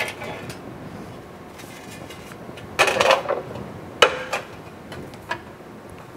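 Thin sheet metal rattling and clanking against the steel of a box and pan brake as it is handled and fed in. A cluster of clanks comes about three seconds in, then a sharp metallic knock that rings briefly.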